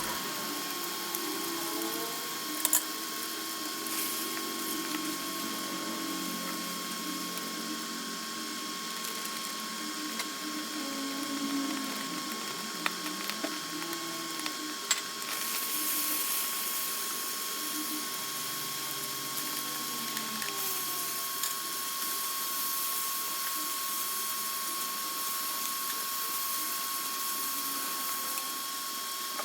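Stir-frying in a pan: a steady sizzling hiss, with a metal spatula scraping and clacking against the pan now and then. The sizzle grows louder about halfway through, over a steady thin hum.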